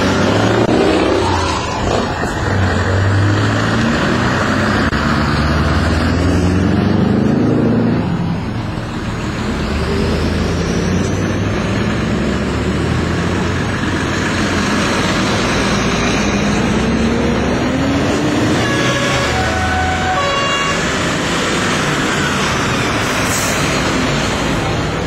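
A convoy of lorries driving past one after another, their diesel engines rising in pitch as they pull away. The first is a Scania V8. About twenty seconds in, a truck's air horn sounds a few short blasts.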